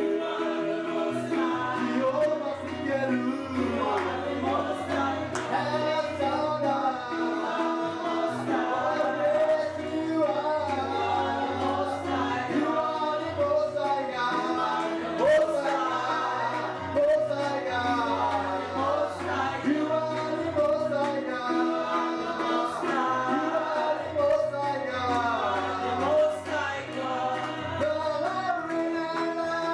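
Live gospel worship song: a woman singing into a microphone over held keyboard chords.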